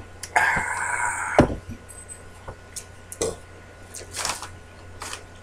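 A glass beer bottle scrapes on a hard surface for about a second and is set down with a knock. A few short rustles and clicks follow as a bag of Cheetos Crunchy is handled.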